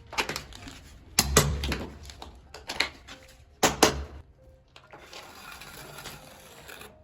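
A few sharp knocks and clicks on a hard surface: one right at the start, a pair about a second in, another single one, and a pair a little past the middle, over faint room noise.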